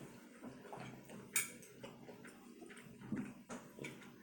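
Quiet eating sounds: a sharp click about a second and a half in, a few fainter clicks, and a brief low vocal sound near three seconds.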